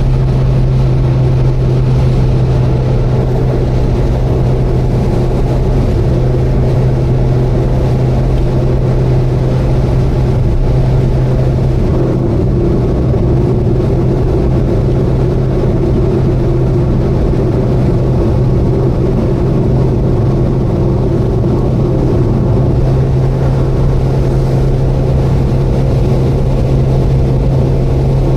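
Subaru Vivio kei car cruising at a steady speed: a constant engine drone with road noise, unchanging throughout.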